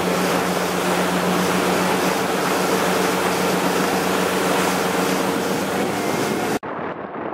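Motorboat engine running steadily at speed, a constant hum over the rush of the churning wake and wind. Near the end the sound cuts off abruptly and gives way to quieter wind buffeting the microphone.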